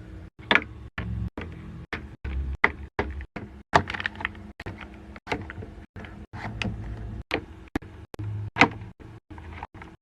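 Quick clicks and knocks of small skincare containers being handled and set down, with abrupt cuts between them.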